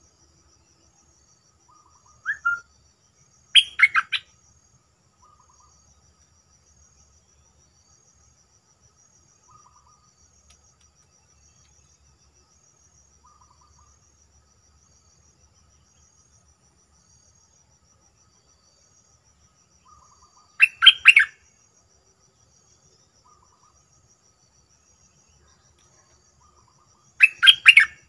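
Stripe-throated bulbul singing short, loud song phrases, three bursts of under a second: about 4 s in, about 21 s in and near the end, with a brief call about 2 s in. Between them come faint short calls and a steady, faint, high insect buzz.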